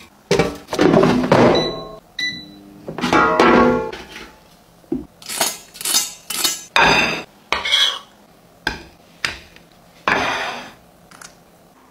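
A string of short kitchen clatters and knocks: metal tongs and the air fryer basket clanking as chicken is handled, then a plate set down on a wooden board about ten seconds in, over music.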